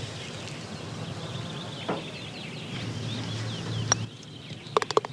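Birds chirping on a golf green, a putter tapping a golf ball about two seconds in, and a sharp click near four seconds as the ball drops into the cup. Hand clapping begins just before the end.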